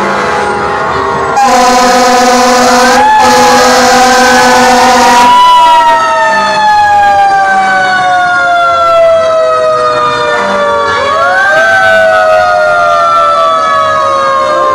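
Fire truck siren wailing in slow glides, falling and then winding back up twice, with a long air horn blast over it from about a second and a half in, lasting about four seconds.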